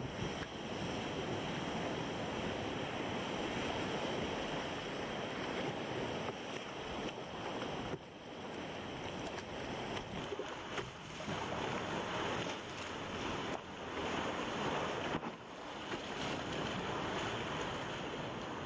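Steady rush of breaking surf and churning sea water around the kayak and the rocks, with wind buffeting the microphone. The rush dips briefly a few times.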